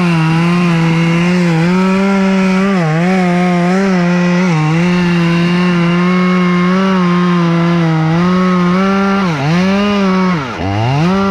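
Stihl two-stroke top-handle chainsaw cutting into a tulip poplar trunk, held at a steady high rev. Its pitch sags briefly a couple of times and drops deeply twice near the end before rising again.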